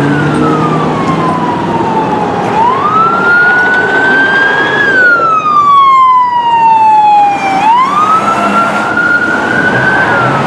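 Electronic siren of a fire battalion chief's Ford Expedition sounding a wail, its pitch sweeping slowly down and back up about every five seconds as the vehicle approaches and passes, over traffic noise.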